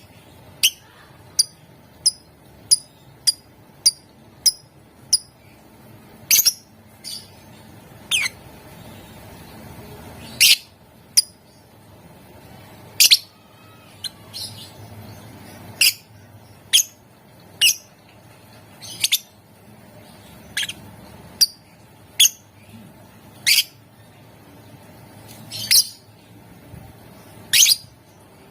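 Lovebird giving short, sharp, high-pitched calls one at a time: about two a second for the first five seconds, then one every second or two.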